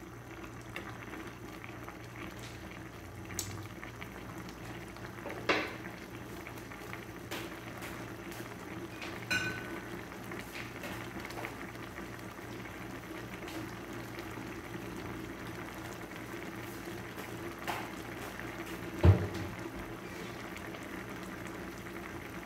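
Soy-and-oyster-sauce adobo sauce with squid bubbling steadily in a pan as it is cooked down to reduce. A few short knocks are heard, the loudest a dull thump about three quarters of the way through.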